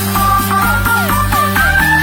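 Background music: upbeat electronic dance music with a steady beat and synth lines that slide up and down in pitch.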